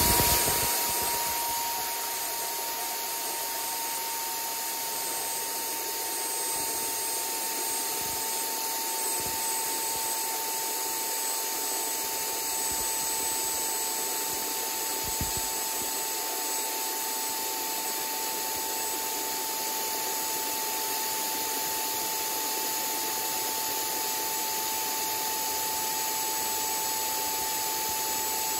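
Jetfan 80 mm electric ducted fan driven by a HET 700-83-1445 brushless motor, spooled up to high power on 12S and drawing about 140 amps. It gives a steady loud rushing of air with a whine near 1 kHz. A surge at the start settles within a couple of seconds, and the whine's pitch drops very slightly as the run goes on.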